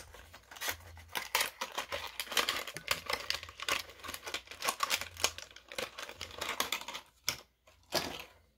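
Packaging of a 1/64 diecast truck being opened by hand: a quick run of crinkling, tearing and clicking, thinning out to a few separate clicks near the end.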